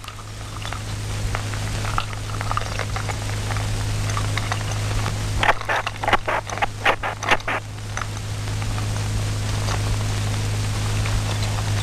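A door's metal handle and lock being worked by hand, clicking and rattling in a quick cluster about halfway through, with a few faint ticks before. A steady low hum and hiss lie underneath.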